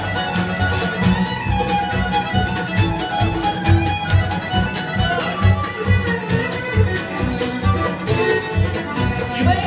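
Live bluegrass band playing an instrumental break, with fiddles carrying the melody over banjo, mandolin and guitar keeping a steady beat.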